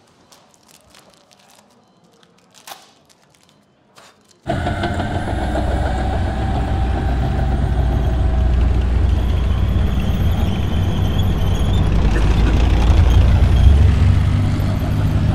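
Near silence with a few faint clicks, then, about four and a half seconds in, a sudden cut to a loud, steady low rumble of heavy vehicle engines with a few held tones above it.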